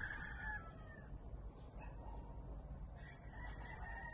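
Two long drawn-out animal calls, each lasting about a second and a half, the first at the start and the second about three seconds in, over a low steady rumble.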